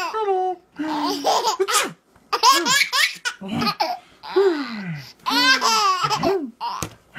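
A baby laughing hard in repeated bursts of belly laughter, some bouts falling in pitch.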